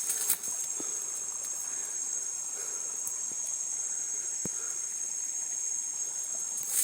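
High, steady chorus of insects, such as crickets, over an even rush of the river's flowing water.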